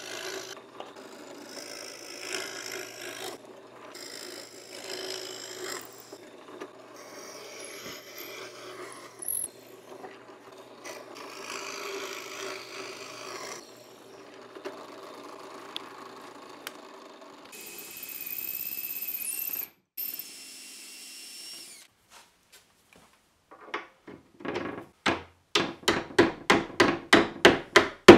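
A drill press running, its bit boring holes into a Brazilian cherry hinge leaf in several passes, followed by a brief high whine. Near the end comes a fast run of sharp hammer blows on the wooden hinge, the loudest sound here, quickening to about four a second.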